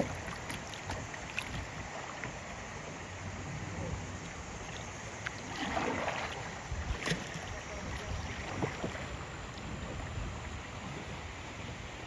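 Kayaking on a river: a steady rush of water with some wind on the microphone, a few light knocks, and a splash about six seconds in.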